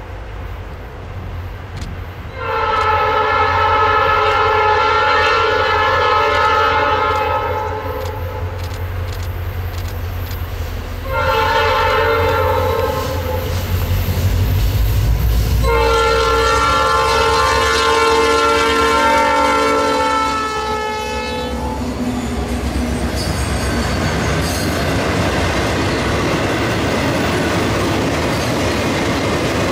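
Diesel locomotive air horn, several notes sounding together, blowing a long blast, a short one and then a final long one: the ending of a grade-crossing signal. After the last blast the train rolls past with a steady rumble of wheels and clicking over the rail joints.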